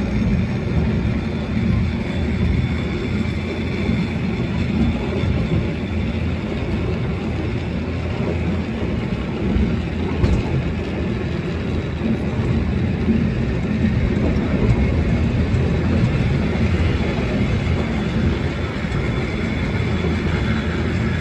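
Steady rumble of a water-powered funicular car running on its rails.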